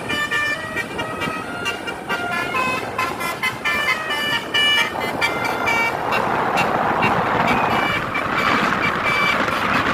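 Bus telolet horn playing a quick melody of short stepped notes, several pitches sounding together, for about the first five seconds; after that a loud steady rushing noise takes over, with a few faint horn notes still coming through.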